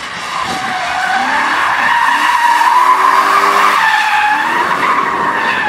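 Rear tyres of a drifting BMW E36 squealing in one long wavering tone as the car slides sideways, with its engine revving and dropping underneath. Loudest about three seconds in.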